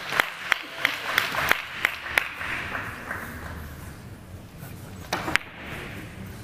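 Scattered audience applause, individual claps thinning out and dying away over the first two to three seconds. A sharp click or two follows about five seconds in.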